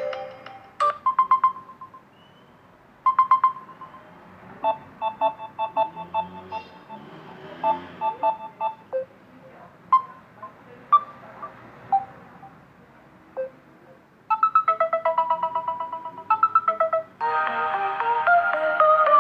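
Samsung Galaxy A03 Core phone playing one short ringtone melody after another, the way previews play while ringtones are tapped through in the settings list. Each chiming tune starts and stops, and a louder, fuller one begins near the end.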